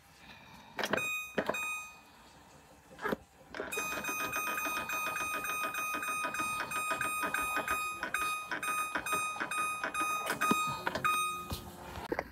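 Electric oven's touch control panel beeping as its timer is set: two short beeps about a second in, then about eight seconds of rapid, unbroken beeping at the same pitch while the minus pad is held and the timer scrolls to 29:59.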